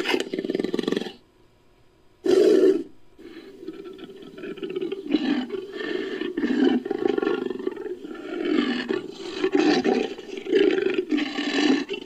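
Made-up Homotherium (scimitar-toothed cat) sound effect built from lion and tiger recordings: a short roar at the start, another about two and a half seconds in, then a long run of pulsing, rumbling growls.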